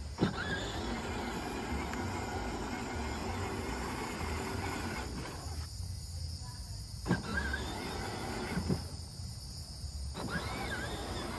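Battery-powered ride-on toy Jeep running across grass: the grinding whir of its electric drive motors and plastic gearboxes, cutting out twice for about a second partway through.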